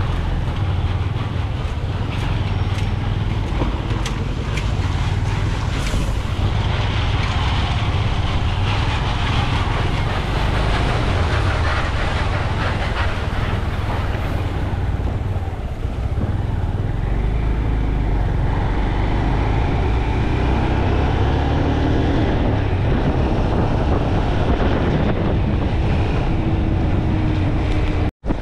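Wind buffeting the microphone in a steady low rumble, over a continuous rushing noise.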